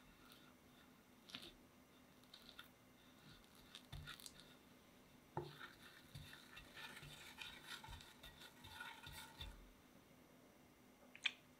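Faint scraping of a metal offset spatula spreading and smoothing cream cheese frosting on a cake as the turntable spins, with light knocks and a sharper click near the end.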